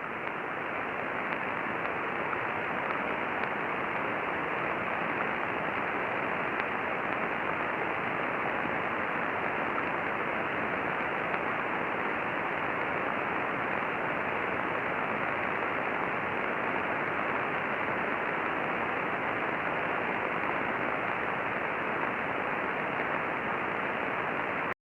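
Steady hiss of static from a shortwave radio receiver tuned to 13,560 kHz, with a few faint ticks in the first seconds. It cuts off abruptly near the end.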